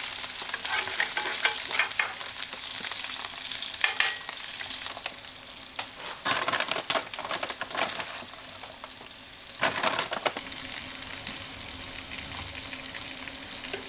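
Bacon and eggs sizzling in a skillet, with a metal spatula scraping and clattering against the pan now and then.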